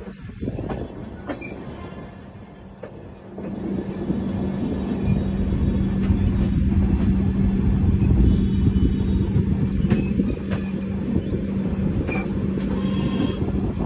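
Farakka Express LHB passenger coach rolling along the rails, heard from its open door: a dense rail rumble with a steady hum beneath it, growing louder about three and a half seconds in and holding.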